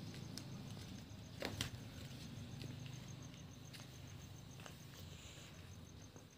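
A cricket chirping in a steady, fast pulse, faint over a low background hum. A few light clicks sound through it, the loudest pair about a second and a half in.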